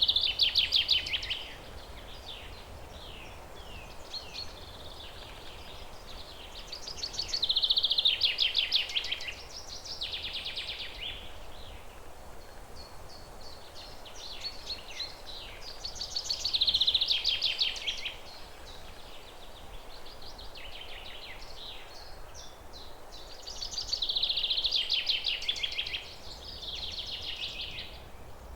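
A songbird singing in the forest: loud, rapid trilled phrases about two seconds long, repeated roughly every eight seconds, with quieter chirps from other birds in between. A faint steady hiss of wind in the leaves sits underneath.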